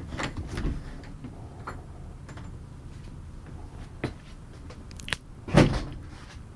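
A few scattered knocks and clicks, like doors or cabinet fittings being handled in a small room, with one heavier thump about five and a half seconds in.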